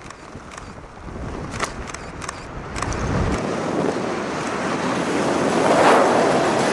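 Wind rushing over the microphone under an open ram-air parachute canopy, growing steadily louder from about three seconds in. A few faint clicks sound in the first three seconds.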